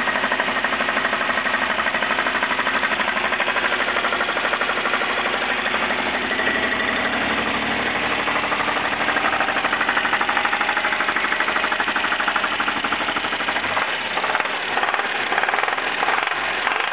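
Jeep engine running with a loud, rapid, hammering knock like a jackhammer. The knock comes from badly worn main bearings: four were found shot.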